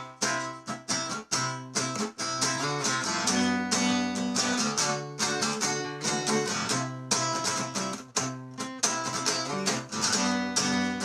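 Acoustic guitar strumming chords in a steady rhythm, the instrumental intro to a song.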